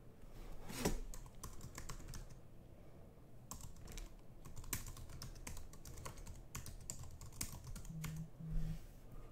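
Typing on a computer keyboard: irregular quiet key clicks, with two brief low hums near the end.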